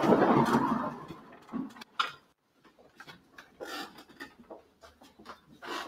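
Crowd noise in a room that dies away about a second in, leaving a quiet room with scattered small clicks and knocks.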